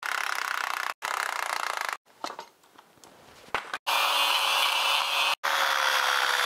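Angle grinder with a cutoff wheel cutting into the steel of a Ford 8.8 rear axle, taking the leaf spring perches off the axle tubes. The grinding breaks off abruptly several times. Past the middle there is a quieter stretch with a few clicks, then from about four seconds in the grinder cuts steadily with a high steady whine.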